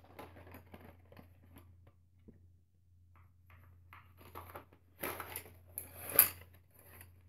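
A cardboard box of colored pencils being handled and turned over, with scattered light rustles and taps and two louder rustles about five and six seconds in.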